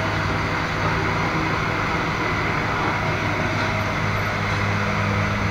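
A steady low mechanical hum over a haze of noise, unchanging throughout.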